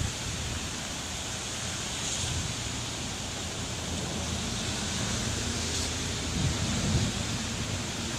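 Heavy rain falling steadily, an even hiss with a low rumble underneath.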